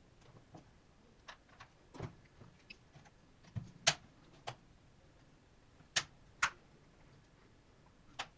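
Irregular sharp clicks and taps of hard parts and tools being handled as a laptop is taken apart. The loudest click comes about four seconds in, two more come close together around six seconds, and one comes near the end.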